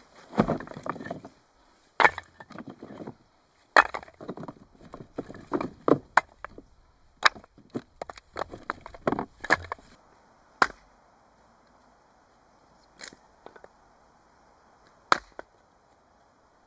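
Split firewood logs knocking and clattering together as they are dropped onto a pile, a dense run of wooden knocks for about the first ten seconds. Then a hatchet strikes wood on a chopping block three times, a couple of seconds apart.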